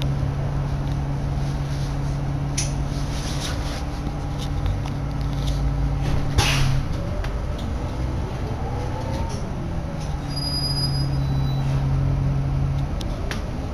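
Inside a Nova LFS Artic articulated city bus: a steady low engine and drivetrain hum. About halfway through there is a short, sharp hiss of air, then a whine rises and falls in pitch for a few seconds.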